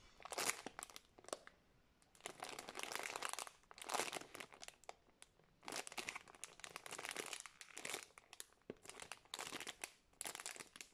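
Thin clear plastic bag crinkling softly in irregular bursts as the squishy foam toy inside it is squeezed and turned in the hands, with brief quiet gaps between handlings.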